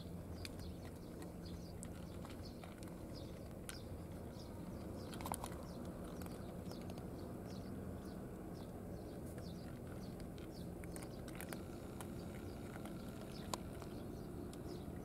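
Steady low outdoor hum, with small birds chirping faintly and repeatedly throughout and a few sharp clicks, the loudest about five seconds in.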